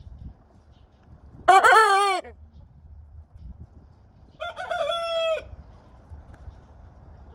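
Chickens calling: two loud, short calls with a rooster-like ring. The first, about a second and a half in, rises and falls in an arch. The second, about three seconds later, holds one pitch and drops at the end.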